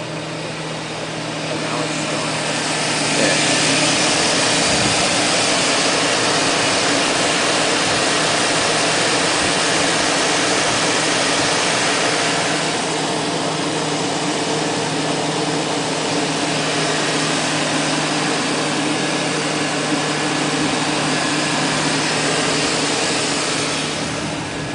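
2000 Chevy Tahoe's 5.3 V8 idling after a cold start, a loud steady rush over a low hum, growing louder about two seconds in and easing slightly about halfway. It carries a knock that the owner takes for piston slap, heard only on first start.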